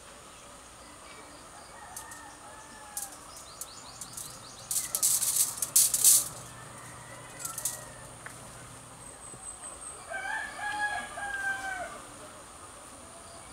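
A rooster crows, faintly about two seconds in and again more loudly about ten seconds in, over a steady high insect trill. Around the middle, a quick cluster of sharp clicks and rattles is the loudest sound.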